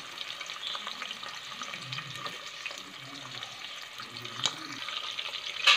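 Shallots and sliced onions sizzling in hot oil and ghee in a pressure cooker base, a steady hiss, with a single click about four and a half seconds in.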